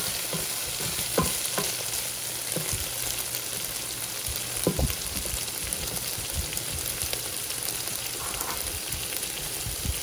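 Chopped onion, garlic and baby carrots sizzling steadily as they sauté, with a few short knocks of the stirring utensil, the loudest about five seconds in.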